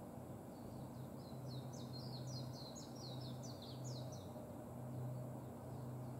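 Japanese white-eye singing: a fast, high twittering phrase of quick down-slurred notes lasting about four seconds. A low hum comes and goes underneath.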